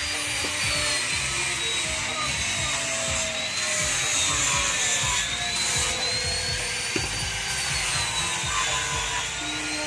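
A power tool running with a steady high whine that drifts slowly up and down in pitch, over background music, with a single sharp knock about seven seconds in.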